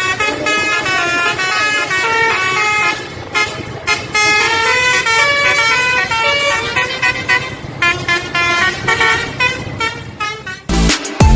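Tour bus's basuri (telolet) horn playing a quick melody of short notes that step up and down in pitch. Near the end it cuts off suddenly to electronic music with a heavy bass beat.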